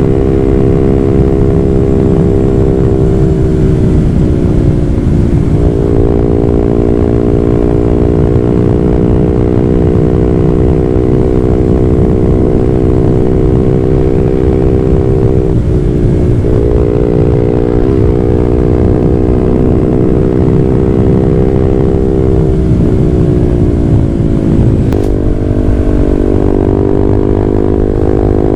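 Honda CB150R's single-cylinder engine running through an aftermarket WRX GP6 silencer and Blue Moon stainless header while the bike is ridden. The engine holds a steady note, and its pitch drops and comes back up a few times.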